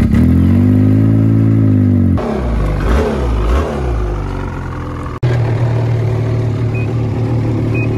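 Ski-Doo snowmobile engines running in short cut-together clips: a steady engine note that swells and eases, then a rougher, wavering stretch, and from about five seconds in a steady idle.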